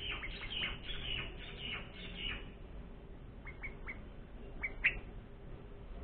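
Bulbul chirps at the nest at feeding time, with a parent feeding its four-day-old chicks. A quick run of short, high, falling chirps fills the first two and a half seconds. A few scattered chirps follow, the loudest near the end.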